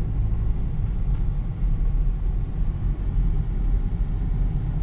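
Car engine and road noise heard from inside the cabin while driving slowly: a steady low rumble.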